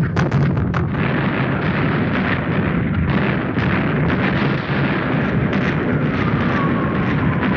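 Battle sound effect: dense, rapid gunfire and explosions, the sharp shots thickest in the first second, with a whistle falling in pitch over the last second and a half.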